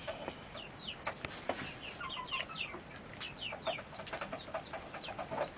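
Birds calling: many short, high chirps that fall in pitch, several a second, with a few clicks between them.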